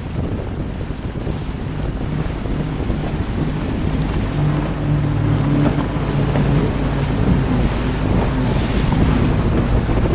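Wind buffeting the microphone over rushing water, with the drone of a 32-foot Yellowfin center console's twin 300 hp outboards as the boat runs past at speed, strongest around the middle.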